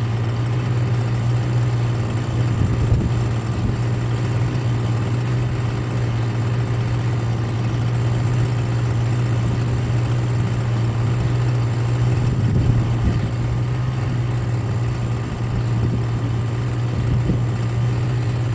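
Small gasoline engine running steadily at a constant speed, with slight surges in loudness about three seconds in and again past the middle.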